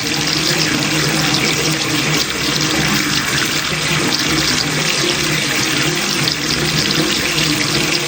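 Water running steadily from a bathroom tap, splashing into the basin.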